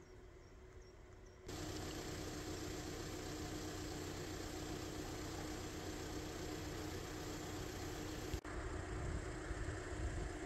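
An engine running steadily, starting abruptly about a second and a half in, with a brief break a little after eight seconds.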